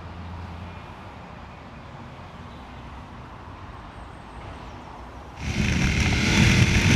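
KTM 1050 Adventure V-twin motorcycle: a quiet low engine hum, then about five seconds in a sudden jump to loud wind rush and engine noise of the bike under way.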